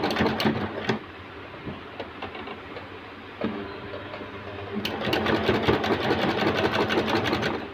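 Usha Janome Allure DLX sewing machine stitching with a ruffler foot set to fold a pleat at every stitch. It runs briefly at the start, pauses, starts again slowly about three seconds in, and about five seconds in speeds up to fast, even stitching that stops near the end.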